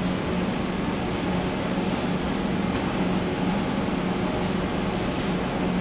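Steady hum and ventilation noise from a stationary CAF M300 metro train's on-board equipment, with a low hum that wavers slightly in strength.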